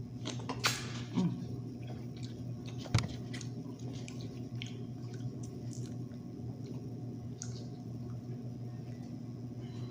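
Close-up eating sounds of saucy seafood: chewing and wet squishing, with a few sharp clicks and taps, the loudest about three seconds in, over a steady low hum.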